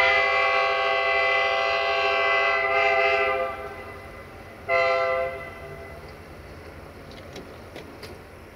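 Air horn of a Romanian LDE2100 (060-DA) diesel-electric locomotive sounding a chord: one long blast of about three and a half seconds, then a short blast about a second later.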